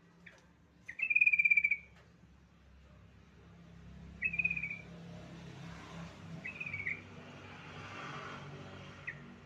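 Yellow-vented bulbul (trucukan) calling in short, bubbly chattering phrases. The longest and loudest comes about a second in, two shorter ones follow around four and six and a half seconds, and a brief note comes near the end. A faint hiss runs under the second half.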